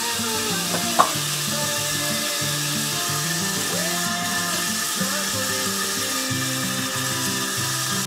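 Steady hiss from cleaning a washbasin's fittings with a sponge, with a sharp click about a second in and a few short squeaks, over soft background music.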